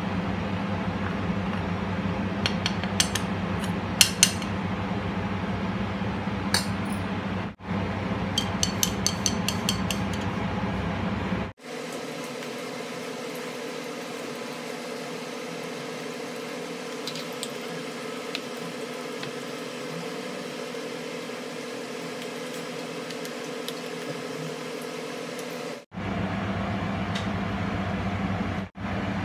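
Steel spoon clinking and scraping against a ceramic bowl while gram flour is spooned in and mixed, with a few sharp clinks in the first ten seconds. A steady background hum runs underneath and changes abruptly to a thinner, higher one about twelve seconds in.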